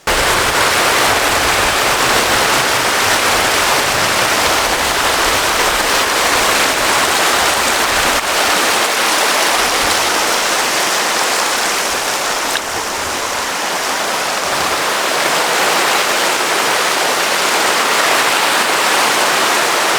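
Loud, steady rush of fast-flowing water from a mountain stream, a continuous even hiss with no breaks.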